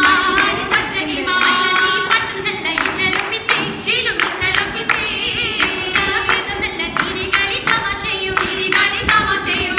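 Oppana song, singing to a steady beat of rhythmic hand claps by the dancers, as in the Mappila wedding dance.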